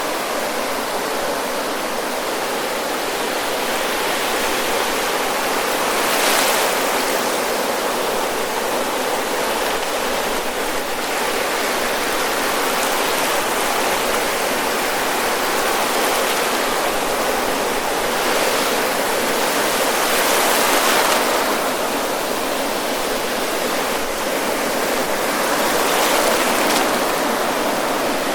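Ocean waves breaking and washing up at the water's edge of a beach: a continuous rush of surf, swelling louder about six seconds in, again around twenty-one seconds, and near the end as bigger waves break.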